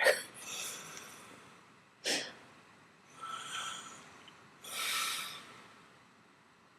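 A woman snoring in her sleep: a sharp snort at the start, another short snort about two seconds in, then noisy breaths, the longest near five seconds in.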